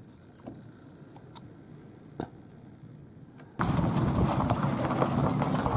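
A quiet background with a few faint clicks, then, about three and a half seconds in, the loud, steady noise of a pickup truck towing a travel trailer across gravel: the truck's engine running and its tyres rolling.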